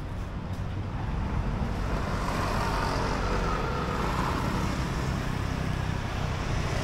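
Road traffic noise: a steady low rumble of passing vehicles, swelling a couple of seconds in as a vehicle goes by.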